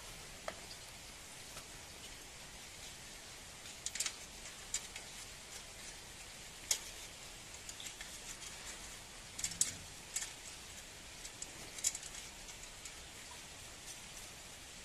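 Scattered small metallic clicks and taps of hand-assembling the mini tiller's steel transport-wheel arm onto its frame bracket, fitting the fixing bolt and nut, over a steady faint hiss.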